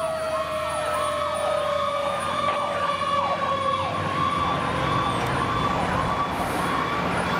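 Pierce fire engine responding under sirens: an electronic siren yelping fast, about two sweeps a second, over a long, slowly falling wail like a mechanical siren winding down.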